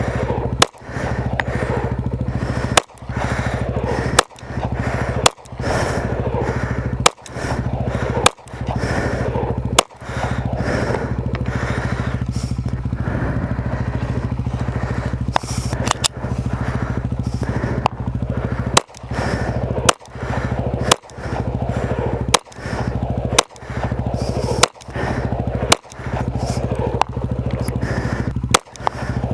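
Handgun shots fired one after another, about one every second or so, with a pause of a few seconds in the middle, over a steady low background hum.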